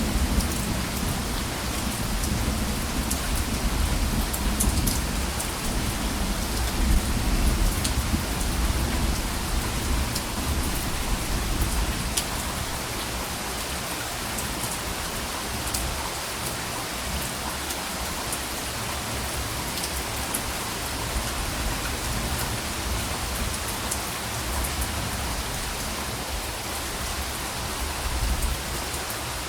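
Steady rain falling, with the patter of drops on a surface. Soft thunder rumbles low during the first half and dies away, leaving the rain alone.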